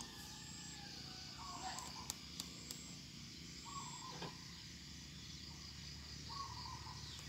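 Crickets chirring steadily, with a bird giving a short wavering call three times, about every two seconds. A few faint clicks near two seconds in.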